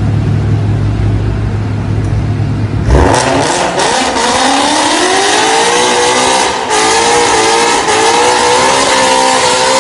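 Ford Mustang engine running low and steady, then revved hard about three seconds in; the pitch climbs for a couple of seconds and is held high, wavering, while the rear tyres spin in a burnout, with a hiss of tyre noise over the engine.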